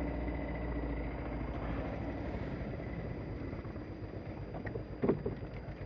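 Yamaha Grizzly 350 quad's single-cylinder four-stroke engine running at low speed, easing off a little about a second in.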